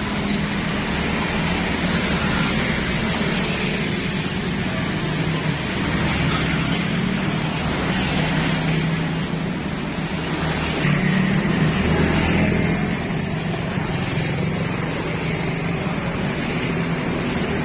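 A motor vehicle engine running steadily, swelling slightly about eleven seconds in.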